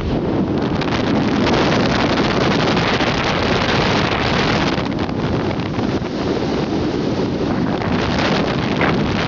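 Strong storm wind blowing hard and buffeting the microphone, a dense, steady rushing noise.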